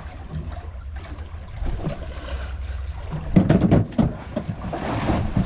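Sea water sloshing against the hull of a small drifting boat, with wind rumbling on the microphone; a louder, choppy stretch of sloshing and knocks comes for about a second a little past the middle.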